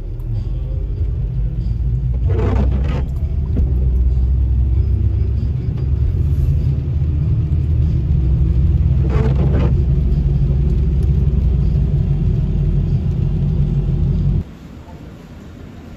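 Car interior noise while driving on a wet road: a steady low rumble, with two brief swishes about seven seconds apart. The rumble cuts off suddenly near the end.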